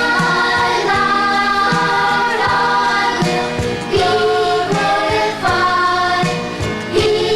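A children's choir singing a Christian praise song with instrumental backing and a steady beat.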